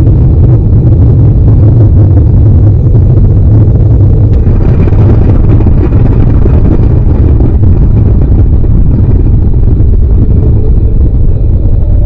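Deep, loud, steady rumble of a nuclear explosion's blast, running on without a break.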